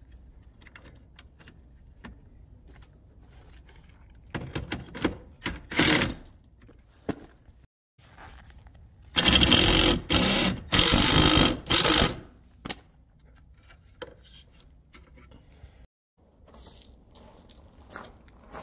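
Light clicks of a wrench on a bolt of the RV slide-out frame, then a cordless impact driver hammering a fastener home in short bursts, loudest in two runs of about a second and a half each a little past the middle. Footsteps on gravel near the end.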